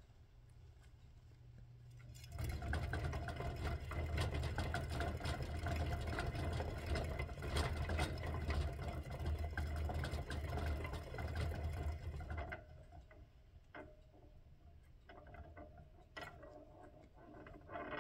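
A plastic hamster wheel spinning under a running hamster, a steady rumble full of rapid rattling clicks that starts about two seconds in and stops about twelve and a half seconds in. Before and after it, scattered soft scratches and ticks of the hamster moving about in its bedding.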